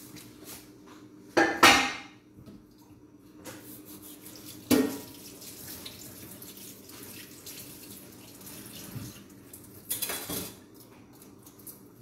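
Kitchenware clattering as it is handled and set down: two sharp clatters about a second and a half in, another near five seconds, and a short burst of clatter near the end, over a faint steady hum.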